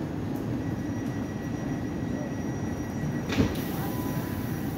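Class 450 Desiro electric train standing at the platform with its doors open, its on-board equipment humming steadily. About three and a half seconds in there is a sharp click, then a high hiss.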